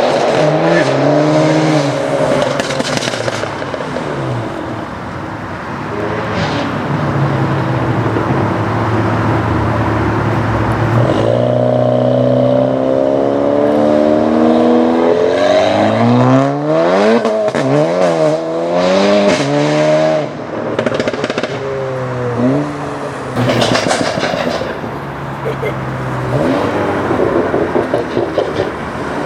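Tuned Seat Leon ST Cupra's turbocharged 2.0-litre four-cylinder engine and custom exhaust. It holds steady revs for stretches, then rises and falls in pitch again and again, busiest in the middle.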